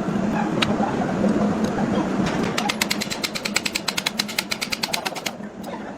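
Workshop machinery running with a steady hum, with a fast run of sharp ticks, about ten a second, from about two and a half seconds in until about five seconds in.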